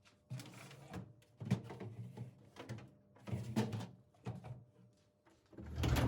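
Hard household objects being handled and set down: a series of knocks and clatters, about eight in a few seconds, the loudest near the end.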